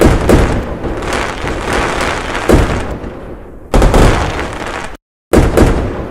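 Fireworks going off in a string of bangs, each fading out, with heavier bursts about two and a half and nearly four seconds in. The sound drops out completely for a moment about five seconds in, then the bangs resume.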